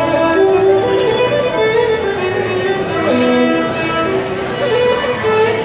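Fiddle playing a Celtic folk tune with band accompaniment, amplified through a PA at a soundcheck.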